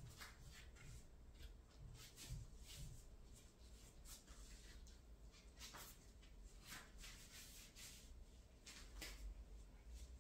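Near silence with faint, irregular rustles and soft taps: a barefoot person shifting position on an exercise mat.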